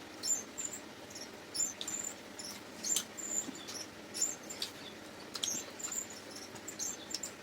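Close mouth sounds of people eating luchi with chicken curry: irregular short wet clicks and smacks of chewing and lips, a few a second.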